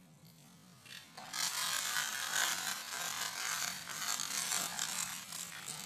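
A bundle of dry uncooked spaghetti snapping and crackling as a car tyre rolls over and crushes it. It starts suddenly about a second in as a dense rush of many tiny breaks that goes on for over four seconds.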